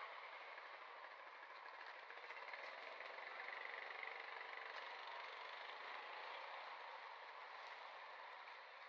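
Faint, steady outdoor background noise with no distinct calls or knocks.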